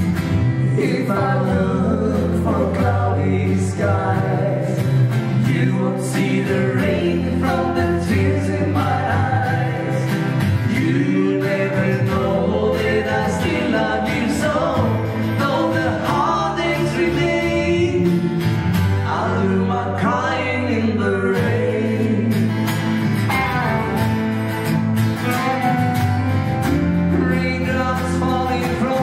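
Live band music: two men singing together over strummed acoustic guitars, electric bass and drums.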